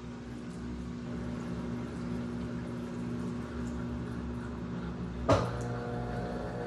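Brastemp BWU11 washing machine on its spin cycle: a steady motor hum with a single sharp knock about five seconds in, after which the pitch of the hum changes.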